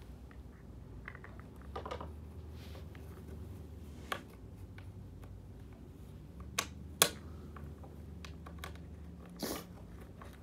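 Scattered small clicks and taps of snowboard binding hardware (plastic strap parts, washers and screw) being handled and fitted by hand, with a sharper click about seven seconds in, over a low steady hum.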